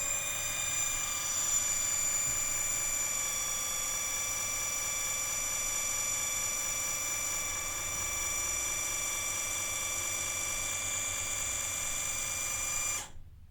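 Moose hot lather machine's small motor running with a steady whine as it whips a shave pod into hot lather, cutting off suddenly near the end when the lather is done.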